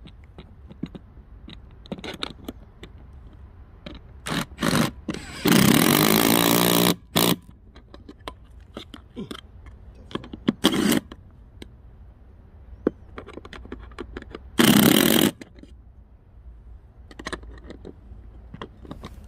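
Aerosol spray can hissing in repeated bursts, the longest about a second and a half, with small clicks and knocks between.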